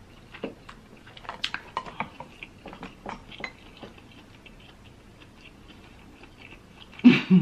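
Snow crab leg shell being cracked and peeled by hand: a run of small clicks and snaps in the first half, then a short loud burst near the end.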